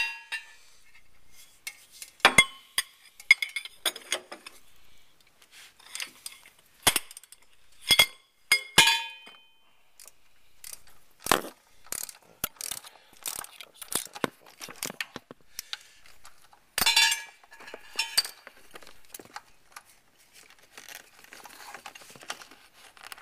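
Metal hand tools and loose parts clinking and clanking against the engine's balance-belt sprocket and tensioner hardware as the balance belt is worked off. The sharp metallic clinks come irregularly, some ringing briefly, and the loudest is right at the start.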